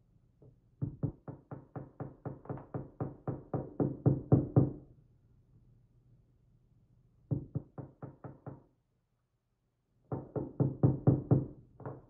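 Rapid knocking from the metal cylinder housing of a Lips Octro lock being tapped against the bench to shake the top pins out, about four or five knocks a second. There are three runs: a long one of about four seconds, a short one in the middle and another near the end.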